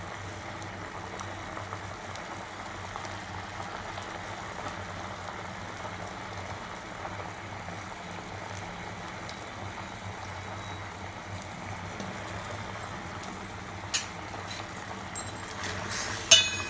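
Chicken boiling in a stainless steel pot on a gas stove: a steady bubbling over a low hum. Near the end a steel ladle clinks and clatters against the pot.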